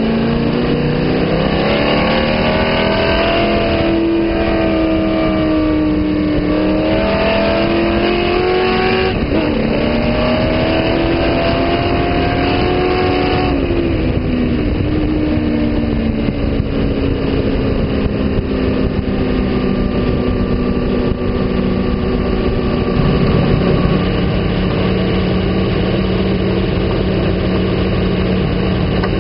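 Sand car (dune buggy) engine heard from on board while driving on sand. For the first half the engine pitch climbs and falls with the throttle, then drops and runs at a steadier, lower speed.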